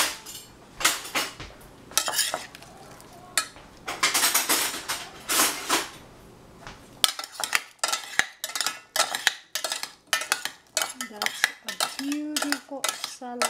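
Metal spoon scraping and clinking against a stainless steel saucepan while a chopped cucumber and tomato salad is stirred and tossed. From about halfway through the clinks come quickly, one after another.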